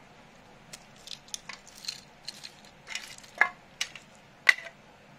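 Pieces of a disassembled laptop charger (circuit boards and broken plastic casing) being handled, clicking and clattering against each other in an irregular run of small sharp clicks, with two louder clacks in the second half.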